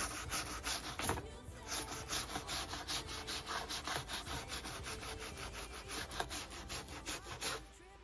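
Toothbrush bristles wet with white vinegar scrubbing a dishwasher's rubber seals in rapid, even back-and-forth strokes, stopping just before the end.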